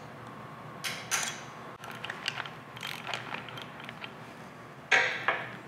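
Hand tools on steel: a punch scraping and clicking against a lock washer tab on a bevel-gear spindle, then a socket ratchet wrench clicking on the spindle nut, with a louder burst of clicking and scraping about five seconds in.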